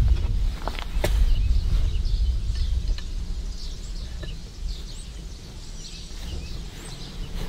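Small birds chirping over a strong low rumble, with two sharp clicks, one about a second in and one about three seconds in.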